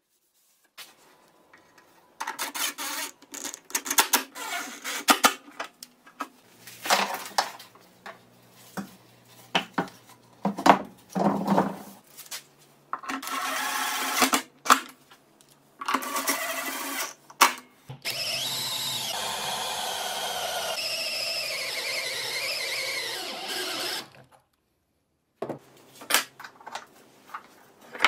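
Clicks, knocks and scrapes of metal tools being handled. This is followed by about six seconds of a power tool's electric motor running, its pitch dipping and wavering as it works, and then more clicking near the end.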